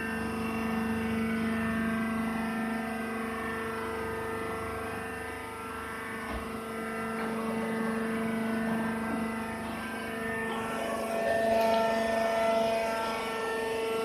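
Wood-shavings baling press running with a steady hum made of several held tones. It grows a little louder, and its pitch pattern shifts, late on.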